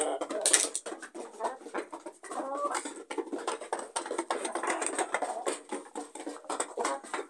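A rooster tidbitting: short low clucks as he calls hens to food, about two and a half seconds in and again around four to five seconds, over a run of quick taps and clicks.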